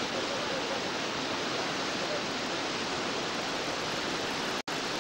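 Steady rush of whitewater in a mountain-river rapid, even and unbroken, cutting out for an instant near the end.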